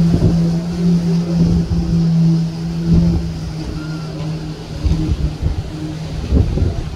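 Wind buffeting the microphone on the deck of a moving cruise ship, over the ship's steady low mechanical hum, which weakens about halfway through.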